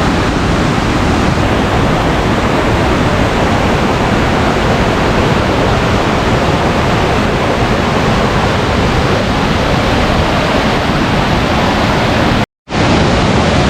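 Waterfall, a steady loud rush of falling water, cutting out for a split second near the end.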